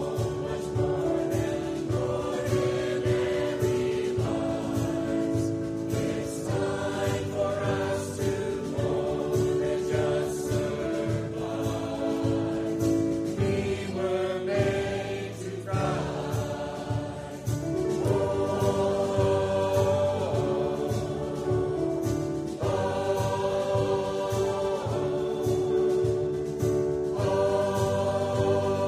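Mixed choir of men's and women's voices singing a hymn in held, sustained lines over a steady low accompaniment, with a brief lull about halfway through.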